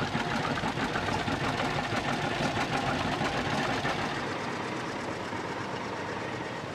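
Vintage John Deere two-cylinder tractor engines chugging with a steady popping beat as several tractors drive past, a little louder in the first few seconds.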